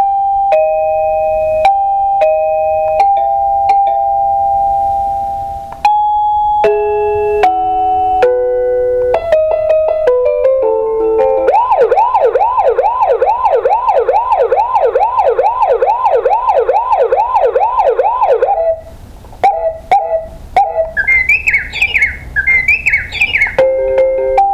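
Dakota Alert DCMA-4K wireless driveway alarm base station playing one preset alert tone after another through its small speaker, as its sound button steps through the 16 tones: a repeated two-note ding-dong chime, a short run of melody notes, a warbling siren lasting about seven seconds at about two and a half sweeps a second, a few short beeps, quick chirping tones, and another melody starting near the end.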